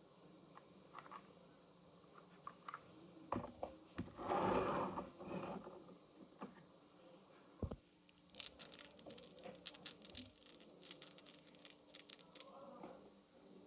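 Marbles running down a wooden HABA marble run, faint: scattered knocks, a short rolling rush about four seconds in, then a quick string of sharp clicks lasting about four seconds.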